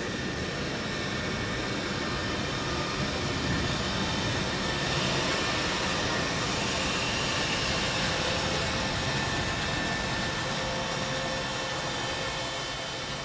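An ÖBB Taurus electric locomotive and its passenger coaches running past close by: a steady rolling noise of wheels on rail with faint steady whining tones. It is loudest about halfway through as the locomotive passes and eases off near the end.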